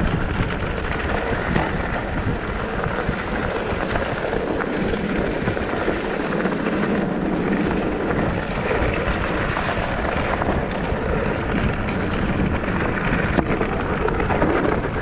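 Mountain bike rolling down a grassy, leaf-covered dirt trail: steady tyre and drivetrain noise under wind buffeting the microphone.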